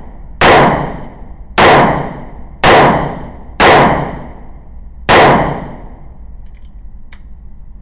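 .22 revolver fired five times, about a second apart with a longer pause before the last shot, each shot echoing off the indoor range's concrete.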